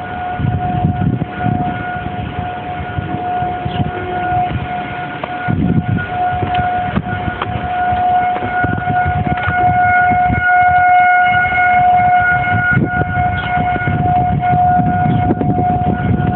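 Tornado warning siren sounding a steady wail at one unchanging pitch, its loudness swelling and fading and growing louder in the second half, with a low rumble underneath.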